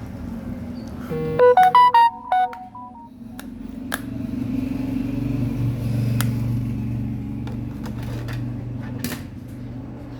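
Keypad mobile phone's speaker playing a quick electronic jingle of about six beeps at different pitches, over in about a second. This is followed by a low steady hum and a few sharp clicks.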